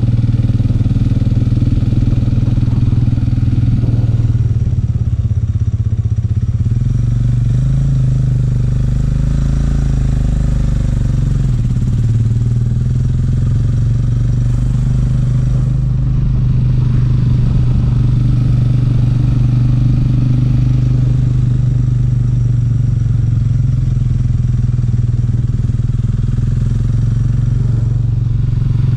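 Motorcycle engine running while riding, heard from on the bike. Its pitch shifts up and down with the throttle between about four and twelve seconds in, then holds steady.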